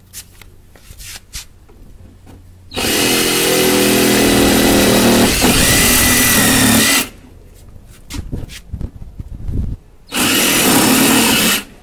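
Cordless reciprocating saw cutting through the plastic pins of a Jeep's rear fender flare in two runs: a loud steady run of about four seconds starting near three seconds in, and a shorter one near the end. Small clicks and knocks of the tool being handled come before and between the runs.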